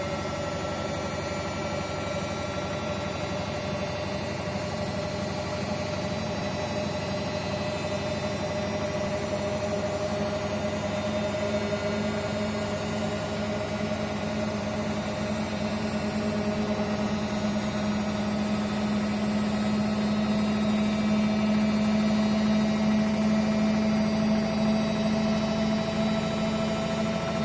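Hotpoint Ariston washing machine running, a steady motor whine and drum hum that rises slowly in pitch and grows a little louder in the last third as the motor speeds up.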